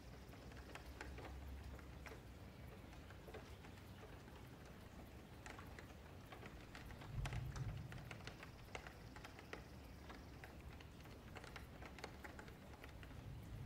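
Faint, irregular clicking of a computer keyboard and mouse, with a low thump about seven seconds in.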